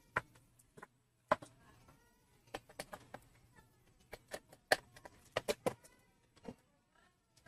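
Scattered sharp clicks and taps of hands and a screwdriver handling a laptop's plastic bottom case while the drive-bay cover is being opened. Faint animal calls sound in the background.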